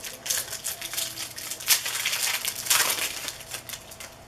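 Foil trading-card pack wrappers crinkling and tearing open, with cards being handled; two louder rips come a little under two seconds in and just before three seconds.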